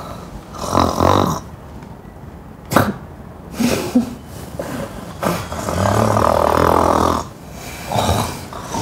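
A woman snoring loudly in her sleep: four heavy snores, the longest lasting about two seconds, with a short sharp sound between the first two.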